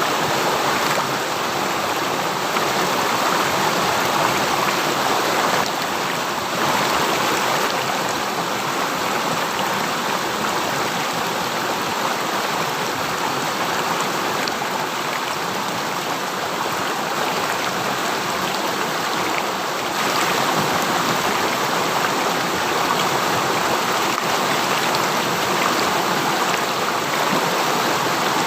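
River water flowing over rocks: a steady, continuous rushing, with small shifts in level about six and twenty seconds in.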